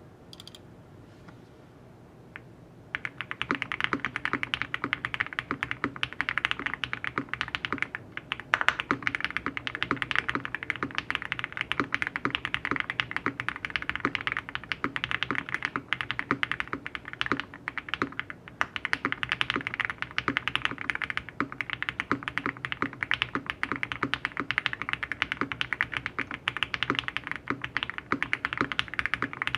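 Fast, continuous typing on a custom Mr Suit mechanical keyboard with lubed and filmed Alpaca linear switches, a polycarbonate plate, foam dampening and GMK keycaps. It starts about three seconds in, over a faint steady background hum.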